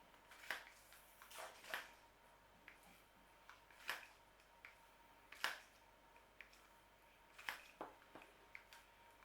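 Faint, irregular clicks and small wet handling noises of a meat injector being worked into a raw turkey's legs, about a dozen sharp ticks over a near-silent background.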